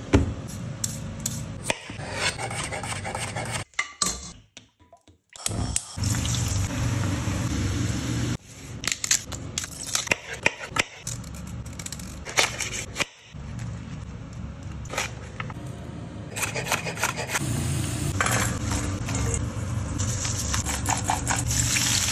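Kitchen knife scraping and cutting potatoes and artichokes over a cutting board, with light knocks of the blade on the board, over a steady low hum. Near the end, sliced potatoes and artichokes sizzle as they drop into hot olive oil.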